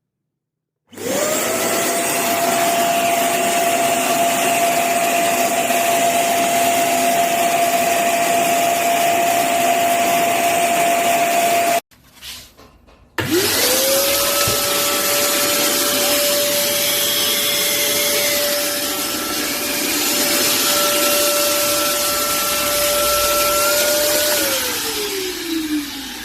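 Wet and dry vacuum cleaner motor starting up, its whine rising quickly to a steady pitch over a loud rush of air, then stopping abruptly. It starts again a second or so later and runs steadily, and near the end it is switched off, its whine falling as the motor winds down.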